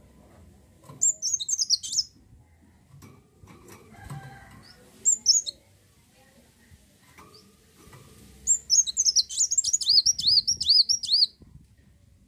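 A kolibri wulung sunbird singing: rapid, high chirping notes in three bursts, a short one near the start, a brief one in the middle and a longer run of quick repeated chirps near the end.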